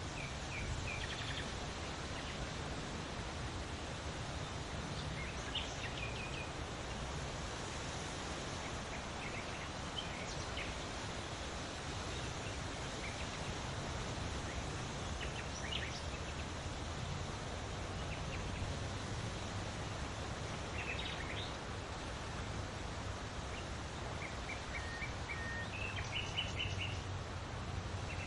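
Steady wind blowing, with birds chirping briefly every few seconds and a quick run of repeated notes near the end.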